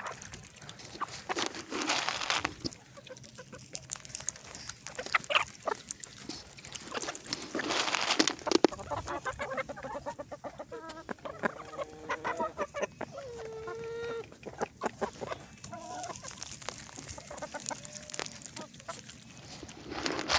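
A flock of chickens clucking, with a run of short pitched calls in the middle and one longer call. A few short noisy bursts come about two seconds in, around eight seconds in and near the end.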